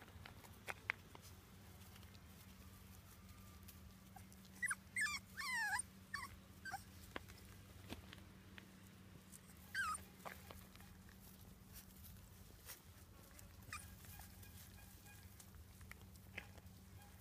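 Month-old Staffordshire bull terrier puppies whimpering: a run of high, falling whines about five seconds in and another short one about ten seconds in, with a few soft ticks and a faint steady low hum underneath.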